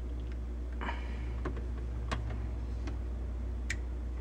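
Small plastic handling sounds as red plastic tubing is worked into a white plastic push-to-connect fitting: a short scratchy rustle about a second in, then several sharp little clicks, over a steady low hum.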